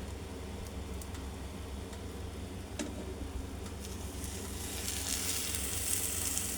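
Egg omelette frying in a buttered pan, sizzling, with the sizzle growing louder over the last two seconds. A steady low hum runs underneath.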